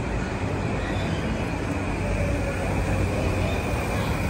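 JR Yamanote Line commuter train crossing the steel girder bridge overhead: a steady rumble of wheels on rails, with street traffic underneath.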